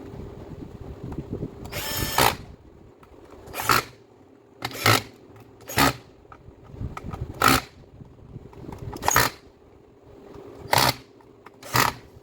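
Electric finishing sander switched on in short blips, about eight brief bursts of its motor a second or so apart, over a faint steady hum.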